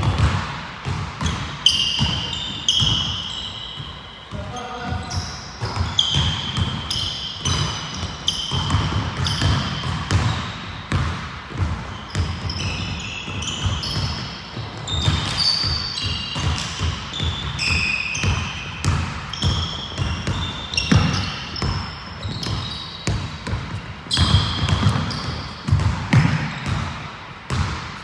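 Basketball bouncing and being dribbled on a hardwood gym floor, with many short thuds. Sneakers squeak in short, high chirps as players cut and stop, echoing in a large gym.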